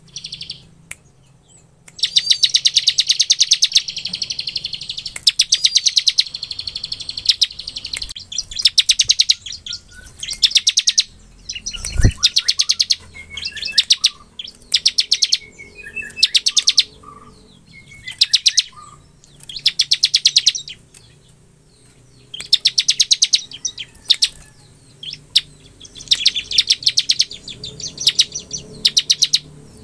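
Bar-winged prinia (ciblek) singing its fast, drill-like trilling song: about a dozen high, rapid trills of one to two seconds each, separated by short pauses. A single low thump about twelve seconds in.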